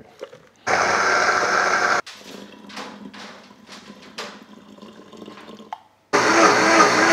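Countertop blender running in two short bursts, about a second in and again near the end, blending a liquid marinade; each burst stops abruptly. Between them, water pours from a cup into the blender jar.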